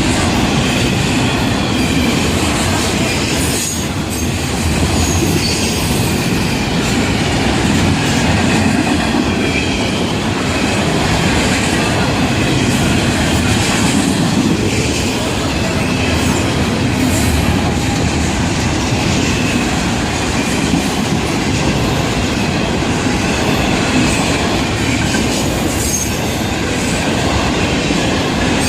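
A Florida East Coast Railway freight train's cars rolling past, a steady loud rumble of steel wheels on rail with clickety-clack and a faint high wheel squeal.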